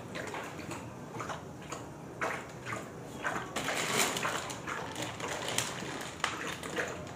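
Dogs lapping water from bowls, a Labrador puppy and a larger black dog: irregular wet laps and splashes, busiest about halfway through.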